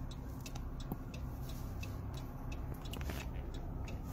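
Low steady hum of a stopped car's idling engine, with scattered small clicks and rustles from the phone being handled.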